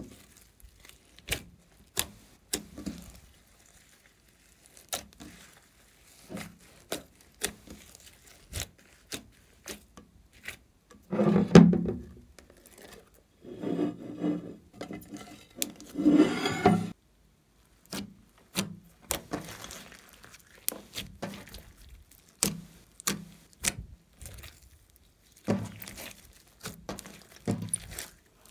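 Hands squishing and kneading soft fluffy slime, making many short sticky clicks and pops. Twice, around a third of the way in and again a little later, there are louder, longer squelching stretches as the slime is pulled and peeled off a glass dish; the second one cuts off suddenly.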